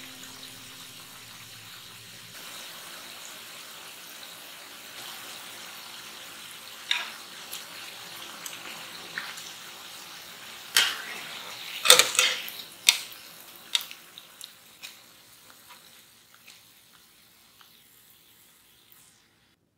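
Mashed-potato balls deep-frying in hot oil, a steady sizzle. From about eleven seconds in, utensils knock sharply against the bowl several times, and the sizzle fades away near the end.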